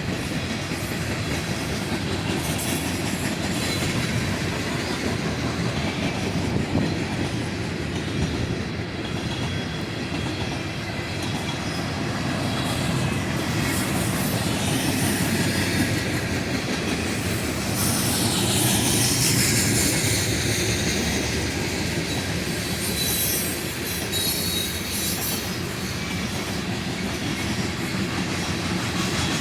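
Freight train cars rolling past, wheels clicking over the rail joints, with high wheel squeal coming in about two-thirds of the way through.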